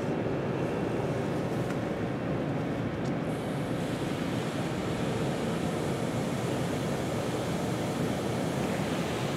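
PDQ LaserWash 4000 touchless car wash spraying water over the car, heard from inside the cabin: a steady rushing hiss that grows brighter about three seconds in as the spray starts striking the windshield.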